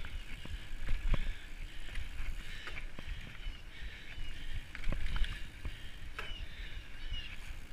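Mountain bike riding fast down a dirt trail: a steady rumble of tyres and rushing air, with scattered knocks and rattles from the bike jolting over bumps, the hardest about one second and five seconds in.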